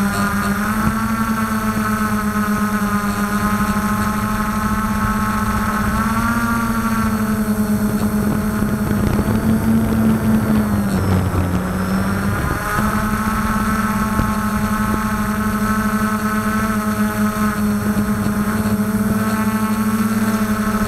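Quadcopter's brushless motors and propellers humming steadily, heard from the onboard camera, with a rushing noise and a brief dip in pitch between about ten and twelve seconds in.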